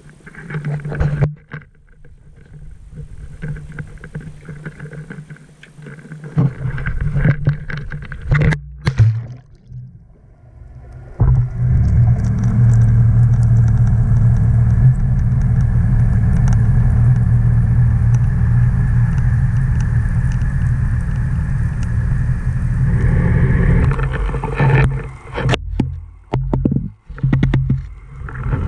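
Knocks and clatter from the camera being handled, then, about eleven seconds in, a loud steady muffled rumble with a low hum, heard through the camera's underwater housing as it sinks. Near the end the rumble breaks up into uneven knocks and dropouts as the camera nears the bottom.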